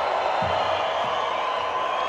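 Concert crowd cheering and whooping in a loud, steady roar, with two low thumps about half a second and a second in.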